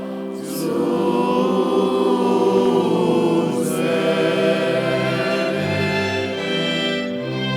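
Choir singing a slow motet in long held chords, with deeper notes sounding beneath from about halfway through.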